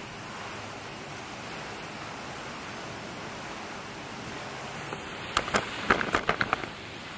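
Steady splashing hiss of a pond's spray fountain. About five and a half seconds in, a quick run of sharp clicks and knocks.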